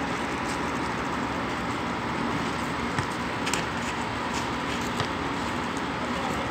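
Steady outdoor background noise, with two short sharp knocks about three and five seconds in.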